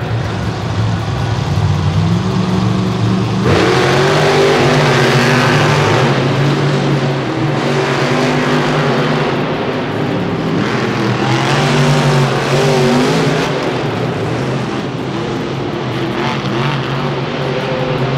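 Grave Digger monster truck's supercharged V8 engine revving as it is driven on the dirt, the engine note repeatedly rising and falling with the throttle, opening up hard about three and a half seconds in and again midway.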